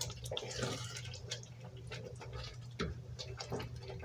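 Pot of matoke and potato stew simmering on the fire, with irregular small pops and ticks of bubbling over a steady low hum.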